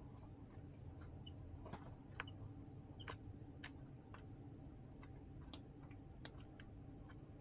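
Chicks pecking in a brooder: irregular, faint, sharp ticks a fraction of a second to about a second apart, with a couple of very faint short peeps over a steady low hum.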